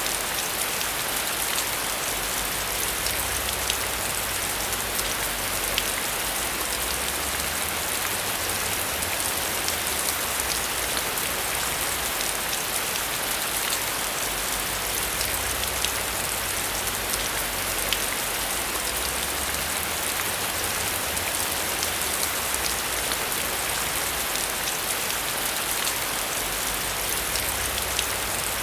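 Heavy rain falling steadily on a metal roof, with many sharp individual drop ticks through the hiss.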